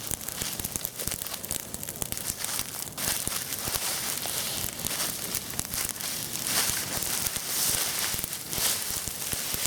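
Heap of dry autumn leaves burning in a bonfire: dense, irregular crackling and crinkling, swelling louder a few times.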